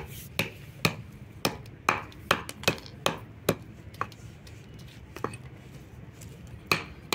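Wooden stick beating dried tamarind pods against a wooden block: sharp knocks about two a second, thinning out after about four seconds, with two more near the end. The pods have been air-dried so the brittle shells crack off cleanly without the pulp sticking.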